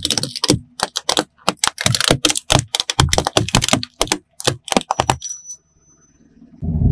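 Plastic claw hair clips cracking and snapping under a slowly rolling car tyre: a fast, irregular run of sharp cracks that stops about five seconds in. A low rumble starts near the end.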